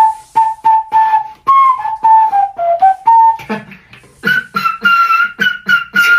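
Beatboxing in the flute style: a breathy, flute-like melody held in the mouth while percussive kick and snare strokes cut through it about three times a second. The melody dips and rises, then jumps to a higher note about four seconds in.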